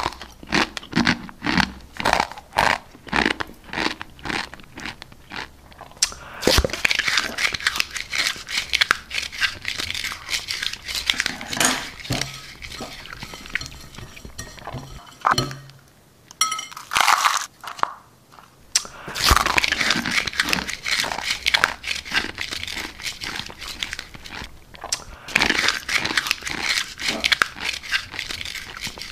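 Rapid, dense crunching and crackling of dry raw instant noodles being bitten and chewed. It comes in bursts, with two short pauses a little past halfway.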